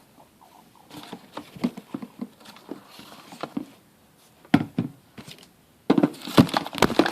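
Sticky homemade slime being worked by hand: a string of short wet smacks and clicks that turns into a denser, louder run of crackling near the end.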